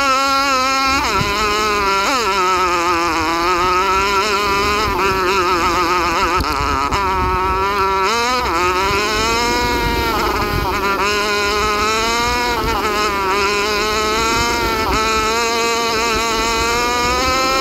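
Small single-cylinder 125cc four-stroke dirt bike engine under way on a trail, the revs rising and falling continuously as the throttle is worked, with several sharp drops in pitch that climb back up.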